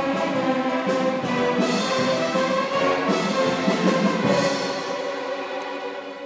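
Student string orchestra of violins and cellos playing a piece, the sound thinning and fading over the last couple of seconds.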